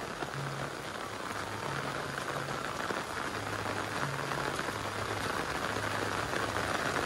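Steady rain falling, an even hiss of drops that grows a little louder.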